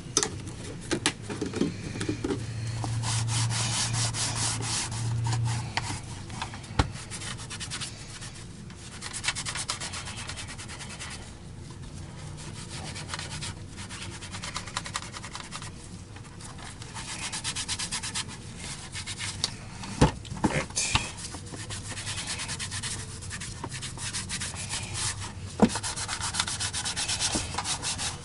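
Cloth wiping and scrubbing the plastic housing of a Miele STB 205 turbo brush nozzle with cleaning liquid, in repeated rubbing strokes that come and go, with a few sharp knocks as the nozzle is handled.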